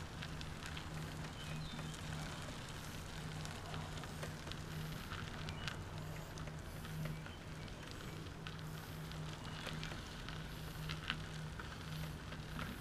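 Trike rolling along, with a steady low hum that pulses slightly, a light crackle from the tyres on the path, and a few sharp ticks.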